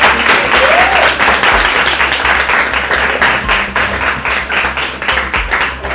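A group of people applauding, a dense clatter of many hands clapping, with a brief shout about a second in.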